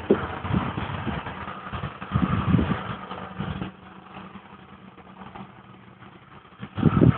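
A 2003 Ford Crown Victoria Police Interceptor's 4.6-litre V8 idling steadily on remote start, with nobody in the car. Irregular short thumps and rustles sound over it in the first half and again near the end, and the sound gets quieter a little past halfway.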